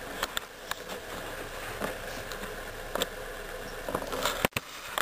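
Camera handling noise: scattered light taps and rustles at irregular intervals over a low background hiss, with the sound cutting out briefly near the end.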